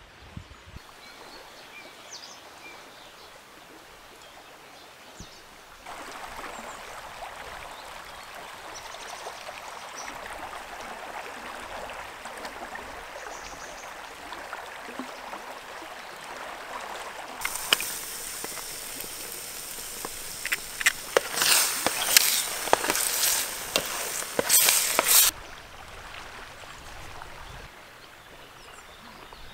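Outdoor riverside ambience with a steady rush of flowing water. About three-quarters of the way through comes a burst of loud, sharp clicks and rustles that stops abruptly.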